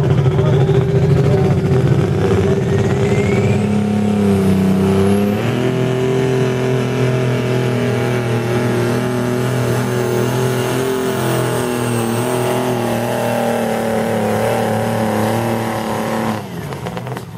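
Turbocharged light super tractor-pulling engine running loud and steady, its turbo whistle rising in pitch over the first few seconds. The engine steps up in pitch about five seconds in and holds there, then the sound drops off near the end.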